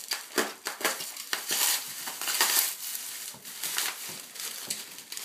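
Clear plastic bag and bubble wrap crinkling and crackling as they are pulled and squeezed open by hand, in irregular bursts that are loudest about two seconds in.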